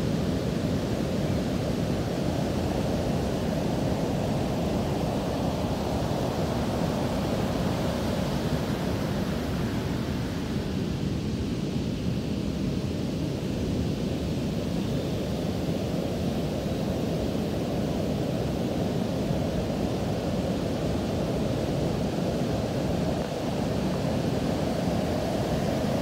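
Heavy winter storm surf breaking in several lines of whitewater and washing up the beach: a steady, unbroken low rush of waves.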